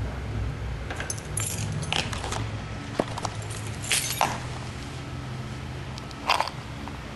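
Short bursts of metal jingling and clinking from a dog's collar tags and leash clip as the dog moves, five or six in all, the sharpest about four seconds in and near the end.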